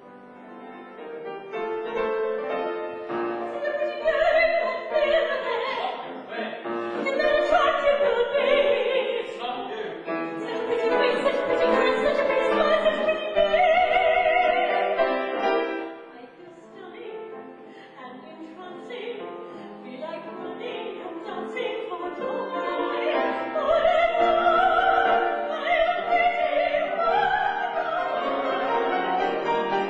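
A woman singing in operatic style with a wide vibrato, accompanied by grand piano. The music drops to a softer passage a little past halfway, then the voice swells again.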